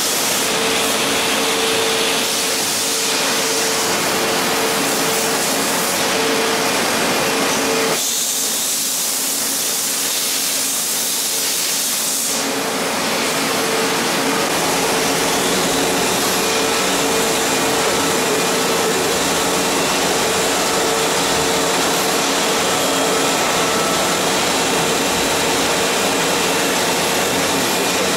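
Steady hum and hiss of machinery running in a machine shop, with a constant mid-pitched tone. About a third of the way in, the lower hum drops away for about four seconds, leaving a brighter hiss.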